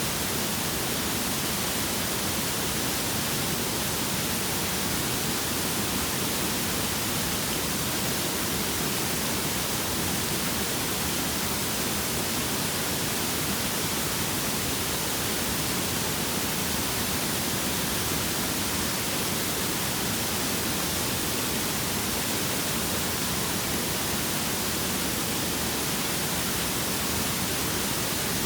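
Waterfall rushing steadily, an even, unbroken hiss that reaches high into the treble, with no birds or other events standing out.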